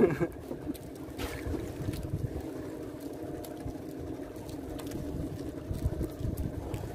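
Fishing boat's engine running steadily, a constant hum with wind and water rumble beneath it; a short click about a second in.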